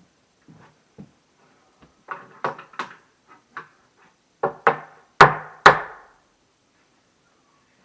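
Knocks and clunks of cabinet parts being handled and fitted during assembly: scattered light taps, then a run of sharper knocks, the two loudest about five seconds in, half a second apart.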